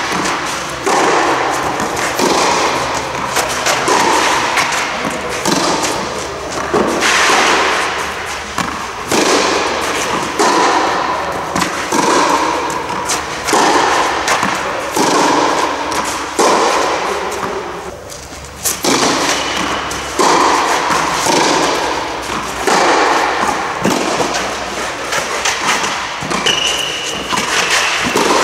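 Tennis rally on clay: racquets striking the ball back and forth, a sharp hit about every second or so, each one ringing out in the reverberant air-dome hall, with a short break about two thirds of the way through.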